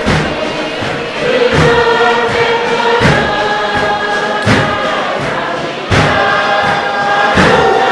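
Tuvaluan fatele: a large group singing loudly in chorus on held notes, driven by heavy hand-struck drum beats about every one and a half seconds.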